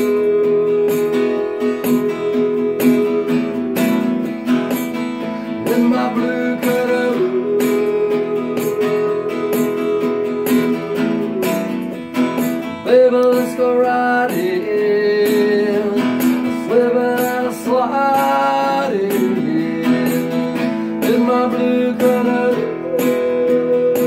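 Acoustic guitar playing an instrumental break: picked melody notes over chords, several of them sliding up in pitch.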